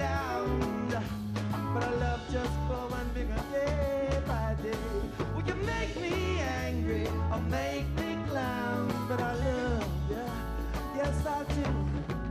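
Live reggae band playing, with a lead melody that bends and wavers in pitch over a heavy bass line and steady drums.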